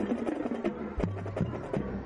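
High school marching band playing: brass and sousaphones sounding sustained tones over a drumline, with sharp drum strikes several times a second and bass drum hits.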